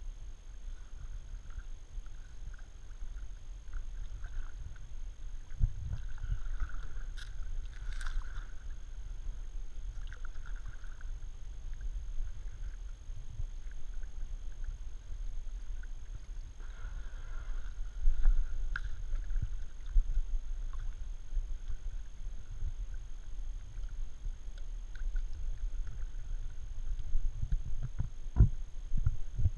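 Kayak paddle strokes and water splashing and dripping around the kayak, over a steady low rumble, with a couple of sharp knocks near the end.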